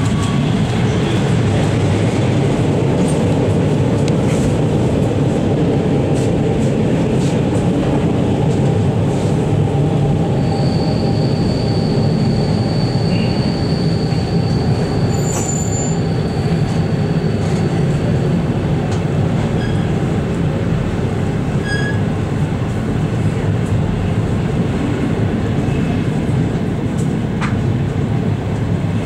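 Moving passenger train heard from inside a coach: a steady rumble of wheels on rails. A thin high squeal comes in about a third of the way through and holds steady for about eight seconds.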